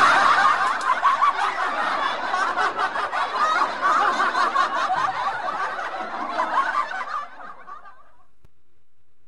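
Canned laughter: a group of people laughing together, starting loud and fading out about seven or eight seconds in.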